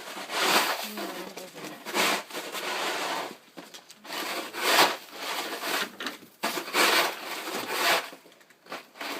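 A shovel scraping and chipping at hard-frozen snow and ice, in a series of rough strokes about one every second or two.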